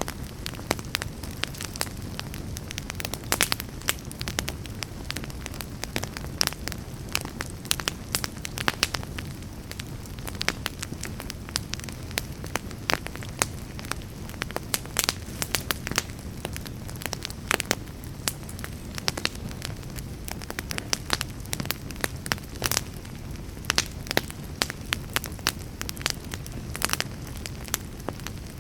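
Fire burning in a fireplace: frequent, irregular sharp crackles and pops over a steady low rumble of the flames.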